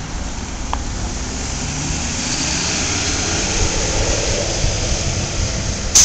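Gillig low-floor city bus with a Cummins ISL diesel and Allison automatic transmission pulling away and accelerating, its engine note rising in pitch over a few seconds with a growing hiss. A short loud knock right at the end.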